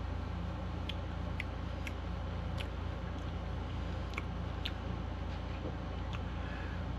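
Mouth sounds of someone eating gelato: about eight small wet clicks and lip smacks, scattered and irregular, over a steady low hum.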